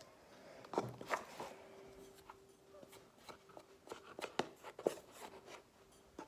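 Faint scattered clicks and taps of containers and a utensil being handled while mixing homemade slime ingredients.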